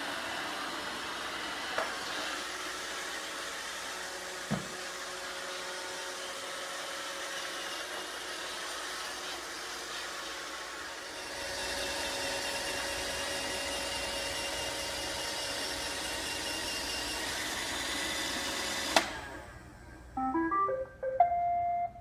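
iRobot Roomba 600-series robot vacuum running: a steady whir of its vacuum motor and brushes, with two light knocks in the first few seconds. Near the end the motor cuts off with a click as the robot reaches its charging dock. It then plays a short rising tune of beeps, the sign that it has docked.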